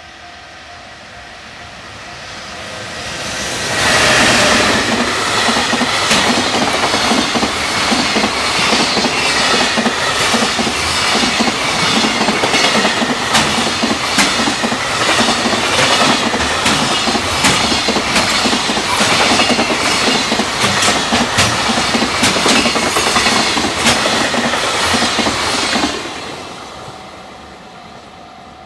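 Electric-hauled freight train passing at high speed. It builds up as the locomotive arrives, loudest about four seconds in, then the wagons' wheels clatter over the rail joints in a long fast run of regular clicks. It cuts off abruptly about 26 seconds in as the last wagon passes, then fades.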